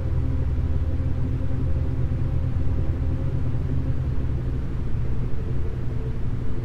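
Isochronic tones: a low tone pulsed rapidly on and off, at the beta-range rate that ends the session's ramp up from low alpha, under soft sustained synthesized chords.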